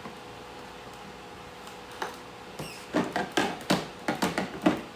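Handling noise from unpacking a steam iron and its plastic parts: one click about two seconds in, then a quick run of sharp clicks and knocks over the last two seconds.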